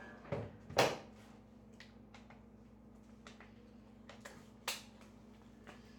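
A dishwasher door pushed shut with a sharp knock just under a second in. A few light clicks follow over the next seconds as the dishwasher is started.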